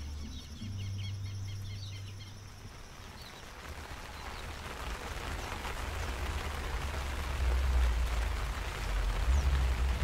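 Small birds chirping over a low hum for the first few seconds. The chirps then stop and a steady rushing noise takes over, with a low rumble that grows louder toward the end.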